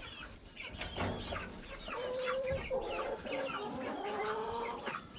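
Chickens clucking inside the coop: many short calls, with several longer drawn-out calls in the second half.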